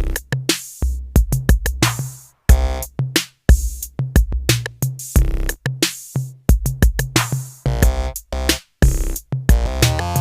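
Background music: an electronic drum-machine beat with deep bass hits, and synth chords coming in every few seconds.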